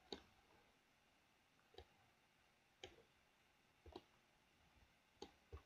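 Near silence broken by about six faint, short computer mouse clicks, roughly one a second and irregularly spaced.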